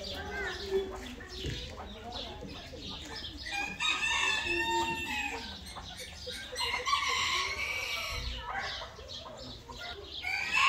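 Roosters crowing several times, long drawn-out calls coming about every three seconds, with hens clucking in between.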